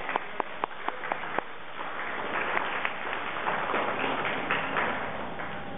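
Scattered handclaps from a small audience: several sharp separate claps in the first second and a half, then lighter, more blended clapping with hall noise.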